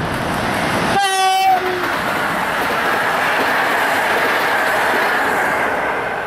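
An electric locomotive hauling a passenger train passes close by. About a second in it sounds a short horn blast, whose pitch dips slightly at the end as the train passes. Then comes the steady rushing rolling noise of the coaches' wheels on the rails, easing off near the end.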